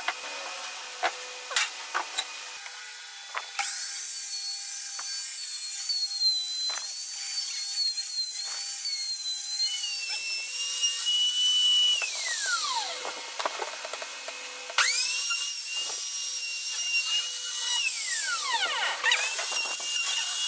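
Compact trim router routing grooves in pine: a few knocks of the board being handled at first, then the motor starts with a high whine that wavers as it cuts. It is switched off and spins down with a falling whine, starts again suddenly, spins down again, and starts once more near the end.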